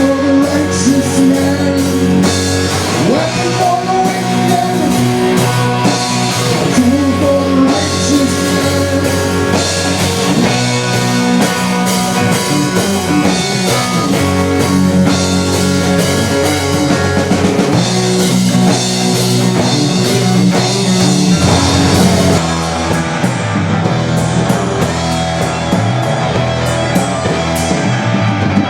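Rock band playing with electric guitar, bass and drum kit.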